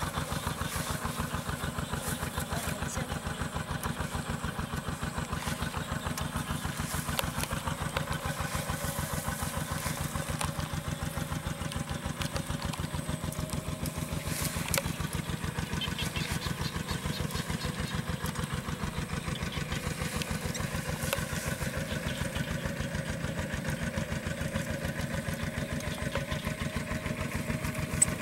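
A small engine running steadily at an even idle, with a fast, regular pulse that does not change.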